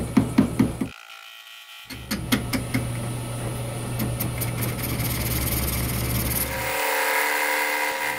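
Metal lathe turning the steel head of a 3 lb sledgehammer with a carbide tool. At first there is a rapid, regular knocking as the tool meets the not-yet-round work, then the lathe hums steadily with the tool cutting. The sound changes suddenly twice.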